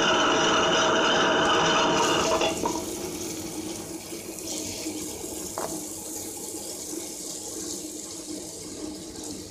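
Stone wet grinder running, its steel drum turning against two stone rollers with a steady mechanical hum. About two and a half seconds in the sound drops quieter and becomes a wet churning as soaked urad dal goes in and begins to grind.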